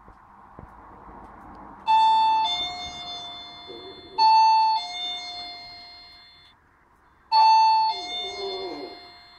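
Doorbell chiming ding-dong three times, each a high note dropping to a lower note that rings on and fades.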